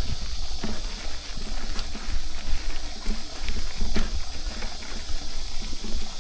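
Mountain bike being ridden on a sandy trail: a steady low rumble of wind on the microphone and tyres rolling, with a few short clicks and rattles from the bike and a steady high hiss.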